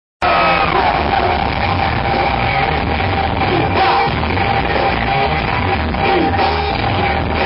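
Loud live rock band music heard from within the audience, with a singer over it; it cuts in abruptly a fraction of a second in.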